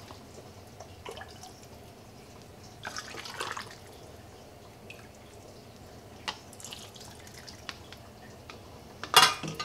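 Chicken stock poured from a metal ladle through a canning funnel into a pint jar of chicken chunks, the liquid splashing and trickling, with a few light ticks. A louder clatter comes near the end.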